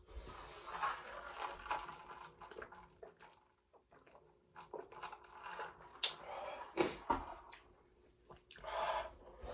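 A person drinking from a plastic cup, with sips and swallows among scattered clicks and rustles.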